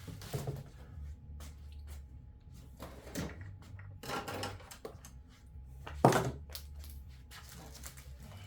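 Packaging being pulled off string trimmer parts by hand: scattered clicks and knocks, with one loud thump about six seconds in.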